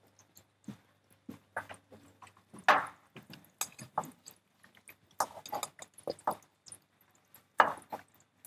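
Kitchen knife chopping tomato and red pepper on a wooden cutting board: irregular knocks and clicks with short pauses between them.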